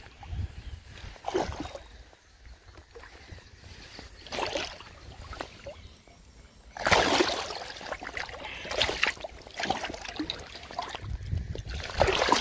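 Water splashing as a hooked pike thrashes at the surface while being landed: a few short splashes in the first five seconds, then continuous heavy splashing from about seven seconds in.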